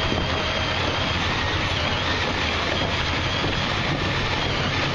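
A boat's motor running steadily: a continuous even drone with a faint high whine over it.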